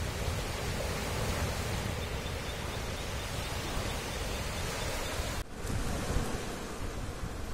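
Steady wind and surf noise with a low rumble of wind on the microphone, cutting out for an instant about five and a half seconds in.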